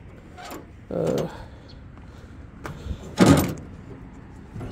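Metal tailgate latch on a Suzuki Carry kei truck's bed worked by hand, with one sharp metallic clank about three seconds in.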